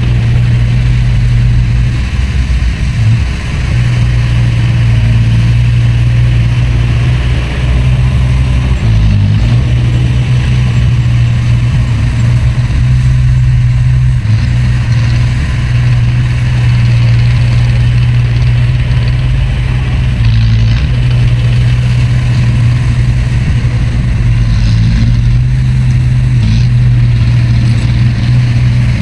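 Heavy diesel engine of earthmoving machinery running steadily and loudly, its pitch shifting slightly and dipping briefly a few times as it works.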